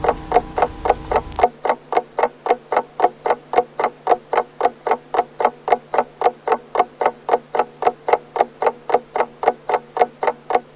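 Grandfather clock's pendulum ticking evenly, about three to four ticks a second. A low hum underneath stops abruptly about a second and a half in.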